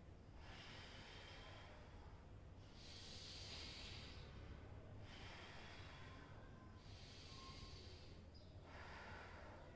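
A man breathing slowly and deeply as a breathing exercise, in through the nose and out in a blow through pursed lips. Four faint breaths come in turn, each about a second and a half long.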